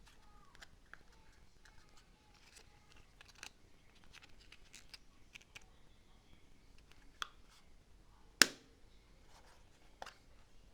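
Light clicks and taps of small plastic kit parts and packaging being handled, with one sharp, much louder click about eight seconds in.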